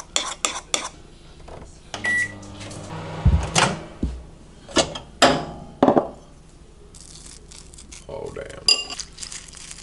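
A spoon clicks against a ceramic bowl while stirring batter. About two seconds in, a microwave oven beeps and runs with a low hum, followed by several knocks of its door and the bowl. Near the end there are more spoon clicks and scrapes in the bowl.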